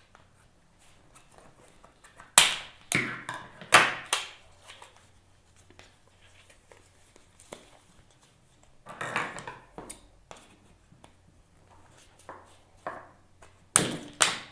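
Cable packaging being handled and opened: a handful of sharp clicks and knocks about two to four seconds in, a rustle around nine seconds, and more clicks and knocks near the end.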